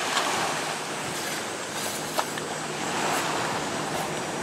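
Wind buffeting the microphone over water lapping at the boat, a steady rushing noise, with a sharp click about two seconds in.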